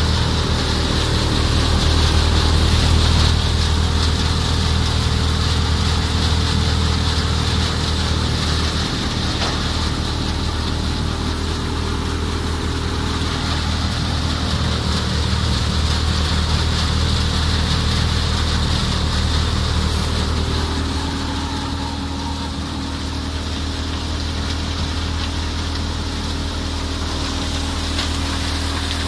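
A tractor-driven wheat thresher running steadily at work, with a deep, constant hum from the Massey Ferguson 385 tractor's diesel engine and the thresher's spinning drum and blower, over a steady rush of straw and grain passing through.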